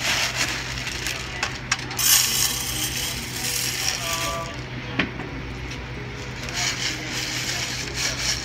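Hundreds of small metal screws rattling and jingling in a plastic tray as they are shaken and pushed across a screw shaker board, dropping into its holes. The jingle is loudest about two seconds in, with a sharp click about five seconds in.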